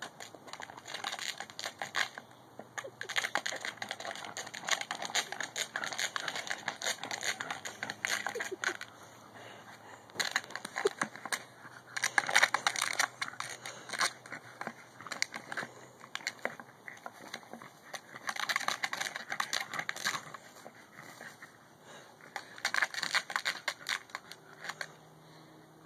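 Spells of crackling and scraping a few seconds long, with quieter gaps between them: a Boston terrier mouthing, chewing and nosing a plastic frisbee in the grass.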